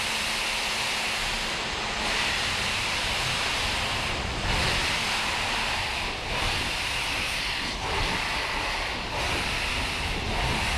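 ČSD class 498.1 'Albatros' express steam locomotive hissing steam steadily, with a slight surge about four seconds in.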